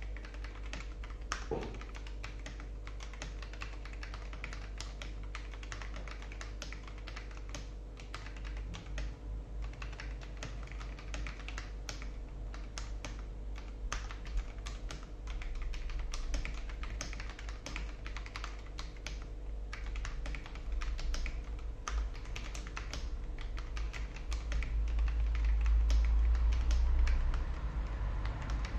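Typing on a mechanical keyboard with Kon Momo PBT Cherry-profile dye-sub keycaps over Akko CS Matcha switches: a fast, continuous run of crisp, solid keystroke clacks. A deep low rumble swells up near the end.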